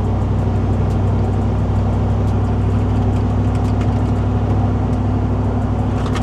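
Steady engine and road drone inside a moving Porsche Cayenne's cabin, with faint light ticks of a rattle from around the passenger seat, which turns out to be loose RCA cables behind the seat.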